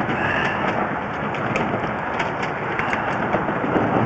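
Steady running noise of a portable air compressor's engine, with scattered small clicks and rattles over it.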